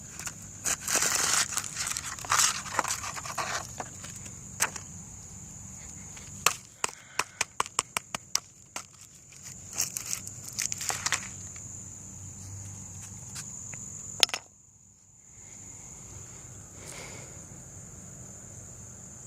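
Crunching, crackling handling noises and a quick run of sharp clicks, at about four a second, over the steady high-pitched chirr of crickets. The sound cuts out for about a second after the crunching stops, then only the crickets remain.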